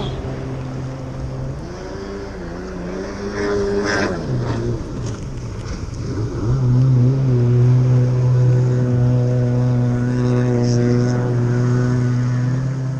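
Jet ski engine running, its revs wavering up and down a few seconds in, then held louder and steady from about halfway.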